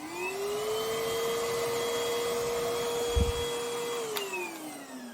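Moolan V1 PRO cordless stick vacuum's motor switched on, its whine rising as it spins up, running steady, then winding down with a falling whine about four seconds in as it is switched off. A short low thump sounds about three seconds in.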